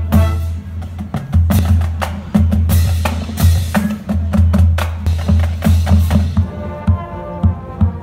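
Drum and bugle corps playing: the drumline beats out a fast, dense rhythm on snare and bass drums over a steady low bass, and about six and a half seconds in the brass comes in with a held chord as the drumming thins.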